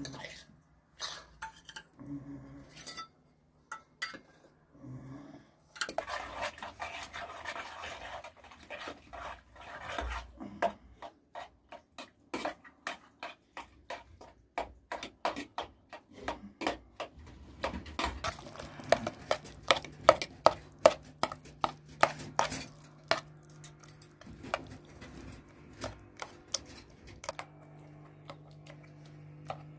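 Utensils clinking and knocking against dishes and pots. The knocks are scattered at first, then come in a quick run of sharp clicks, a few a second, from about ten seconds in.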